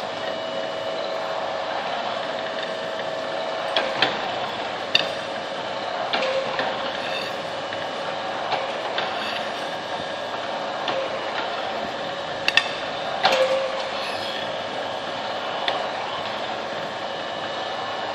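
Metalworking machine for cutting slots in profile tube running with a steady mechanical hum, with a few sharp metal clicks and clanks, the loudest about 4 s in and around 12 to 13 s in.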